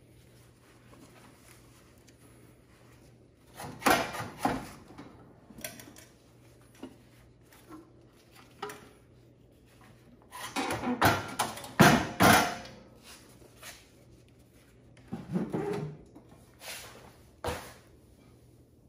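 Clunks, knocks and scrapes of a Briggs and Stratton Intek lawn tractor engine being lifted off the tractor's steel frame: a couple of knocks about four seconds in, a loud cluster around ten to twelve seconds, then a few lighter knocks near the end.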